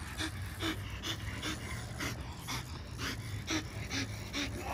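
French bulldog panting hard and fast, about two to three breaths a second.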